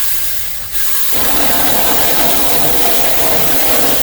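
Small handheld power saw from Temu running at speed, a steady whirring hum with a loud hiss; it drops briefly about a second in, then comes back up and runs on steadily.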